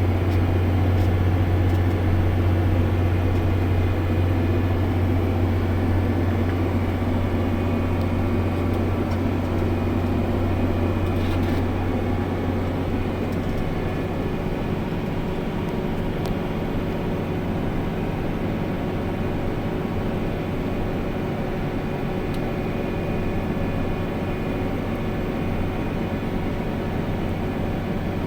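Tractor engine running with a steady drone and a strong low hum; the hum eases off a little about halfway through.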